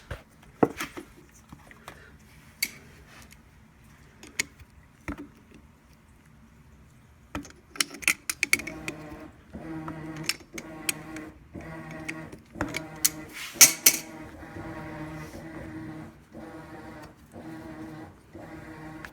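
Sharp metal clicks and taps of a wrench on a spark plug as its terminal tip is worked loose. From about halfway a steady hum comes in, with short breaks and more clicks over it.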